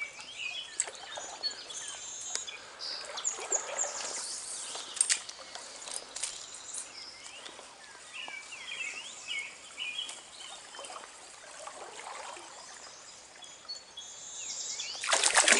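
Small birds chirping and calling in short, quick phrases over the steady hiss of a flowing trout stream, with a few scattered light clicks. Near the end, loud splashing water rises suddenly.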